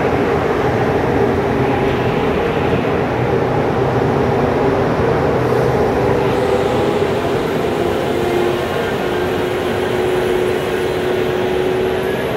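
CFR class 060-EA electric locomotive hauling a train into the station, a steady rolling rumble with a hum that drops slightly in pitch in the second half as it slows.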